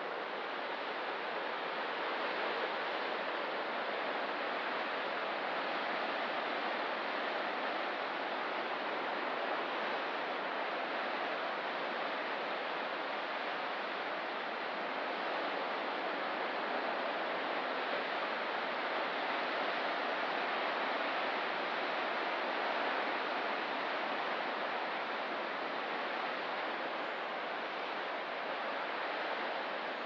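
Ocean surf, a steady, even rush of water with no separate wave crashes standing out.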